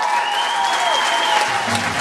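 Audience applauding over dance music, with a long high note held above the clapping; the music's bass comes back in near the end.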